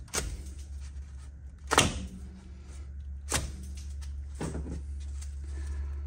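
Four sharp metallic knocks about a second and a half apart, the second loudest, from tools and parts being handled while an evaporator coil is worked on, over a steady low hum.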